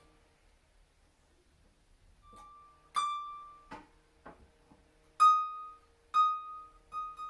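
A high string on a lever harp plucked five times, each note ringing briefly and fading, with a few sharp clicks between the notes from a Camac sharping lever being flipped. The string is being checked as its lever is regulated to give a clean semitone change.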